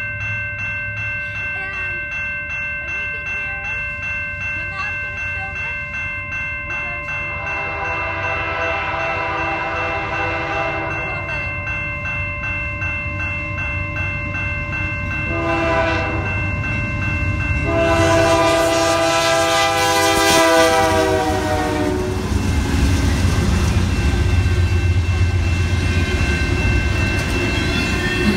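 Freight train approaching and passing: the diesel locomotive's horn sounds a long blast about seven seconds in, a short one, then another long one, and after that the locomotives and a string of autorack cars rumble past close by, loud and steady.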